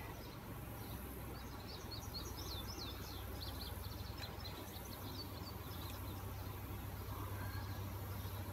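A small bird sings a quick run of high chirps for about three seconds, starting about a second and a half in. Under it is a steady low rumble of outdoor background noise.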